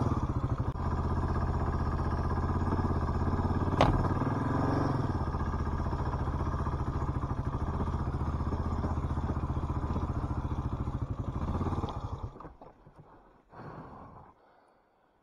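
Suzuki DR650's single-cylinder four-stroke engine running at low speed with an even thumping pulse as it labours up a muddy hill, with one sharp knock about four seconds in. Near the end the engine cuts out suddenly, leaving only a few faint short sounds.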